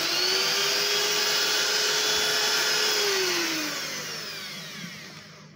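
Electric hand mixer whisking cake mixture in a stainless steel bowl, its motor whining steadily. About three seconds in it is switched off and winds down, the whine falling in pitch and fading away.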